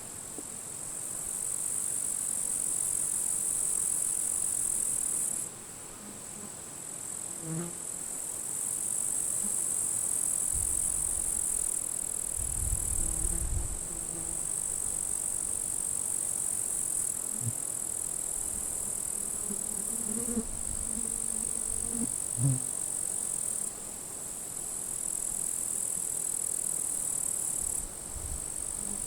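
Grasshoppers stridulating in dry grass: a steady, high-pitched chirring that cuts out and resumes several times. Low wind gusts rumble on the microphone about a third of the way in and again near the end.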